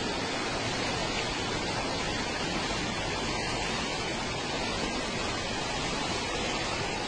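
Floodwater rushing fast along a flooded street, a steady, even rushing noise.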